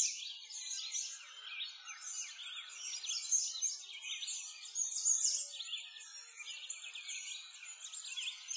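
A dense chorus of small birds singing: many quick, high-pitched chirps overlapping without a break, with nothing low underneath.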